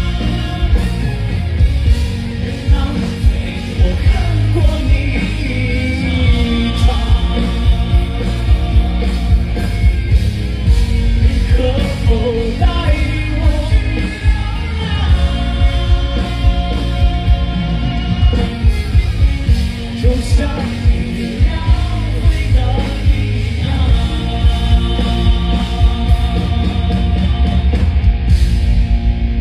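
Live band playing loud amplified pop-rock with a steady drum beat and sustained chords, with singing over it in the middle part, heard from the audience at a concert.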